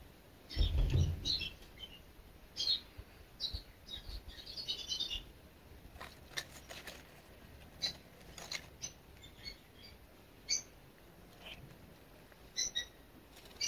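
Small birds chirping in short scattered calls, with sharp clicks here and there. A brief low rumble comes about a second in and is the loudest sound.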